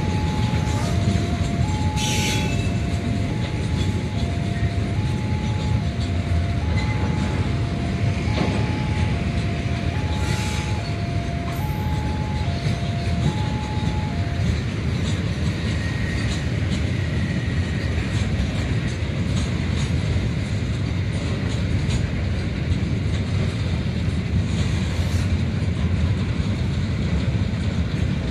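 A long train of tank wagons rolling past, with a steady low rumble of wheels on rail. A two-tone level-crossing warning alarm alternates high and low about once a second and stops about halfway through.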